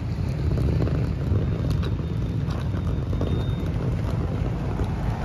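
Wind buffeting the microphone as a steady low rumble, with a few light clicks and a faint thin high whistle around the middle.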